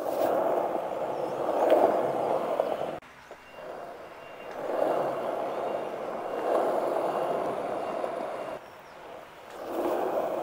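Skateboard wheels rolling over smooth concrete with a steady rough rumble, in three stretches broken by two short quieter gaps.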